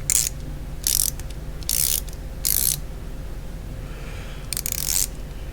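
Tekton ratcheting flex-head box-end wrench being ratcheted in short spurts, about five quick bursts of clicking. It is the 9 mm end, which feels rough and sticky to the owner, who thinks it needs lubricating.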